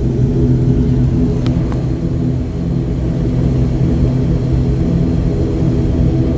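Airliner's jet engines running at taxi power, heard from inside the cabin: a steady low rumble with several held low tones, and two faint ticks about a second and a half in.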